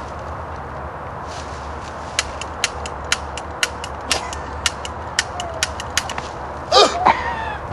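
Toy cap guns clicking and popping, about a dozen sharp snaps at roughly two a second over a steady background hiss. A short loud voice cuts in near the end.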